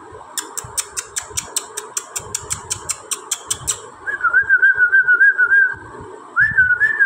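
A rapid run of sharp clicks, about six a second for some three seconds, then a person whistling a warbling, trilled call twice, the kind of whistle used to call a dog over.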